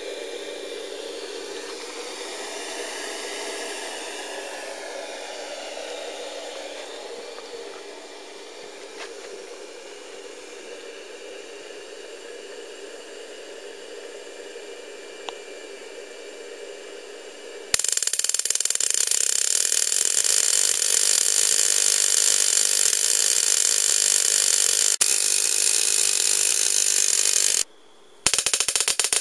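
A homemade Tesla coil firing: about 18 seconds in, a loud, steady, rapid buzzing crackle of its spark discharge starts abruptly and breaks off briefly about a second before the end. Before that there is only a quieter steady background noise.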